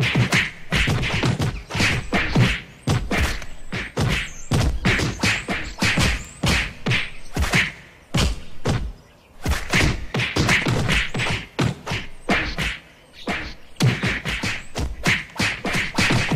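Cartoon fight sound effects: a rapid string of punch thuds and whacks, several a second, broken by a few short pauses.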